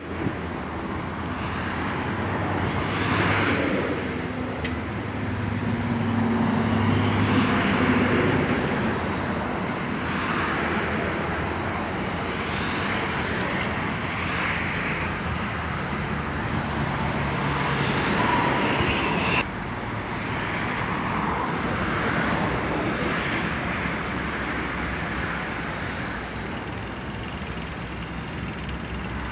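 Diesel engine of a Cometto multi-axle box-girder transporter running as it moves, with a low hum under noise that swells and fades; the level drops suddenly about two-thirds through.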